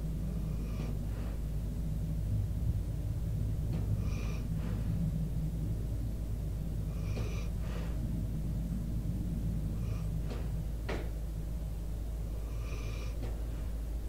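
Sleeping American Staffordshire Terrier/pit bull snoring and breathing, with a breath sound about every three seconds over a steady low rumble.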